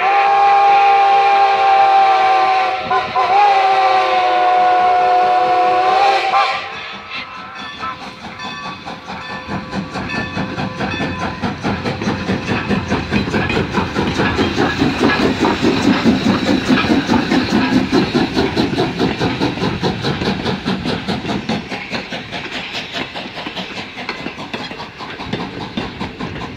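Steam locomotive No. 90, a 2-10-0, blowing its steam whistle in a long blast of several tones at once, with a brief dip partway, that stops about six seconds in. The locomotive then passes close by running tender-first, its rapid rhythmic clatter loudest midway, followed by passenger coaches clicking over the rail joints.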